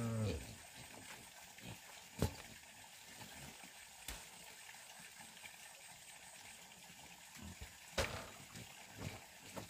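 A cow's low moo cuts off just after the start. Then come a few sharp knocks, one about two seconds in and a louder one about eight seconds in.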